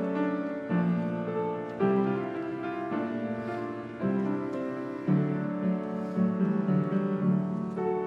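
Piano playing slow chords, each struck and left to ring.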